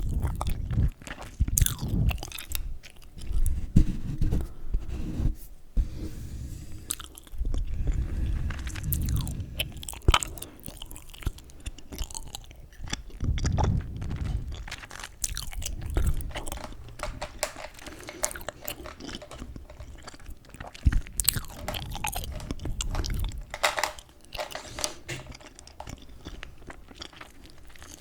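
Chewing gum close to the microphone: irregular wet smacks, clicks and pops of the mouth and gum, with low thuds of the jaw.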